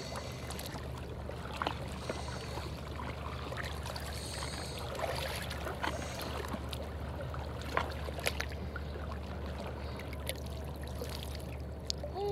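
Shallow sea water lapping and trickling around the legs and rocks, over a steady low rumble, with a few scattered sharp ticks and small splashes.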